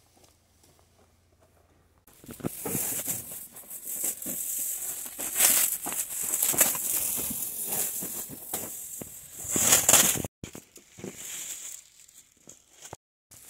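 Plastic stretch wrap being pulled and torn away, crinkling and rustling in loud irregular spurts from about two seconds in, thinning out after about ten seconds.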